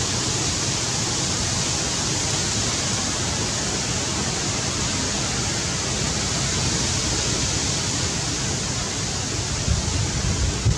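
Steady, even hiss with no distinct events, with a few low rumbles near the end.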